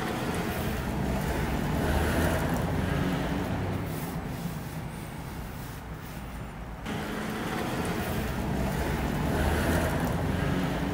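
Steady rumble and hiss, like distant traffic, with a low hum; it thins out about six seconds in and comes back abruptly about a second later.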